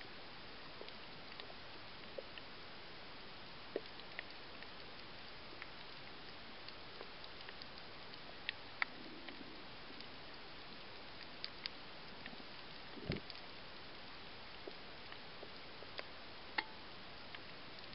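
Underwater reef sound heard through a camera held under water: a steady hiss with scattered sharp, irregular clicks, and one louder low thump about 13 seconds in.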